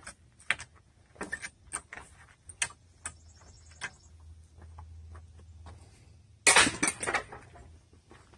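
Trim boards and hand tools being handled while old brick moulding is stripped from a door frame: scattered light knocks and clinks, then a loud clatter about six and a half seconds in.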